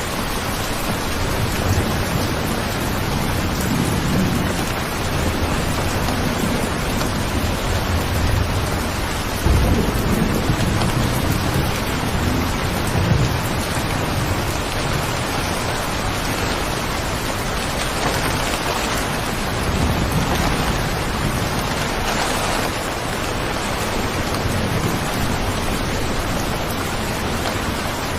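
Steady rain falling, with low rolls of thunder rumbling under it several times, the loudest about a third of the way through.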